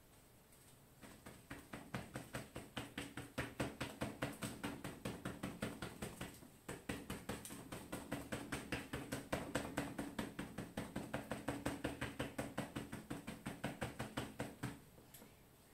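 A crumpled ball of aluminium foil loaded with purple poster paint dabbed rapidly against a painting board, about four soft taps a second, stippling paint in a stamping technique. The tapping pauses briefly about six seconds in and stops shortly before the end.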